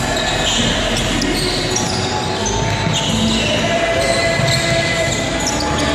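Basketball being dribbled, bouncing on a hardwood gym floor, amid the steady din of a game in a large gymnasium.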